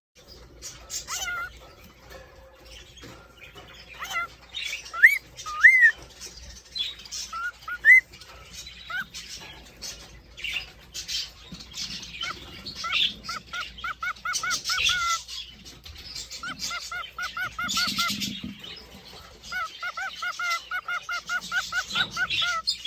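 Cockatiels whistling and chirping. Single rising whistles come first, then quick runs of a repeated note, about four a second, typical of a male cockatiel's courtship song, over busy chatter from other birds.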